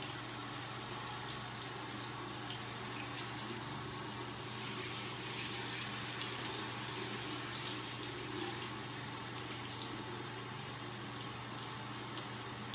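Bathroom sink faucet running steadily, its warm stream splashing over a baby's head and into the basin, with a steady low hum underneath.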